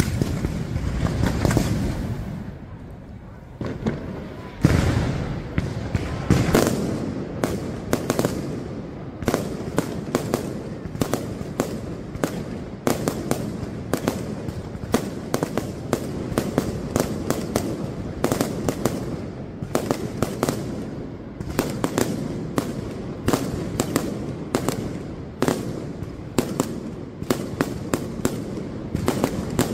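Fireworks going off in dense, rapid cracks and bangs, several a second. The loudest bursts come in the first couple of seconds and again around five to seven seconds in.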